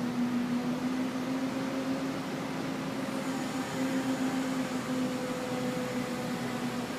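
A machine engine running steadily: an even, low hum that holds one pitch throughout.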